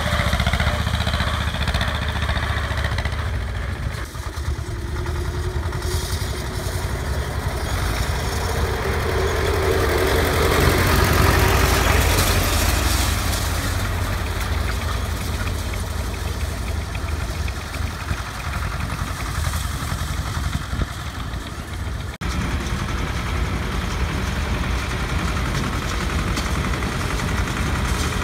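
Diesel tractor engine running steadily as it tows a wheel rake through cut hay, growing louder for a moment about halfway. Near the end the sound switches abruptly to another tractor's engine running steadily.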